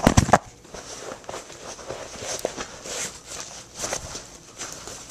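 Handling noise as the hockey gloves and their plastic packaging are moved about: a few loud thumps at the start, then scattered rustles and light knocks.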